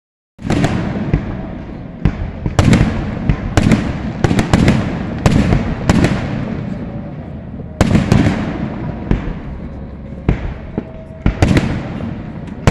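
Aerial firework shells bursting one after another: more than a dozen sharp bangs at uneven spacing, some in quick clusters, each trailing off in a rumbling echo.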